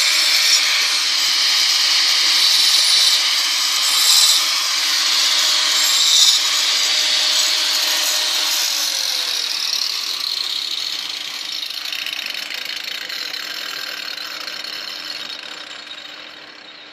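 Angle grinder with a 125 mm diamond blade grinding a chamfer along the edge of a granite worktop: a harsh, steady grinding noise. About halfway through, the grinder comes off the stone, the grinding thins out, and the sound fades away near the end.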